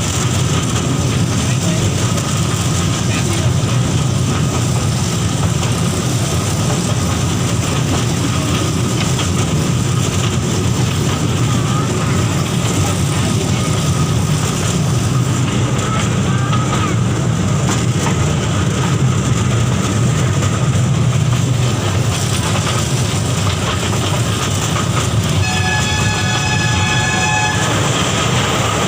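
A ride-on toy train running with a steady rumble. Its horn sounds once for about two seconds near the end.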